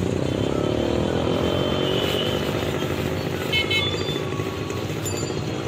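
Street traffic with a motorcycle engine running close by, its pitch gliding in the first couple of seconds, over a steady low rumble.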